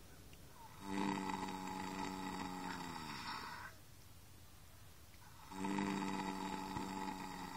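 Horse snoring in its sleep: two long snores about five seconds apart, each a steady note of about three seconds that drops in pitch as it trails off.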